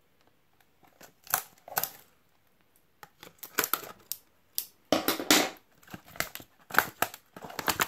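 Plastic packaging crinkling and crackling in short bursts as the shipping wrap is cut with scissors and the clear plastic tub is handled. The loudest crackling comes about five seconds in.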